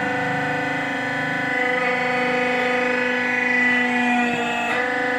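Hydraulic power unit of a brick-making press running: a steady whining hum with overtones. It turns harsher and brighter for a few seconds in the middle, as the pump comes under load.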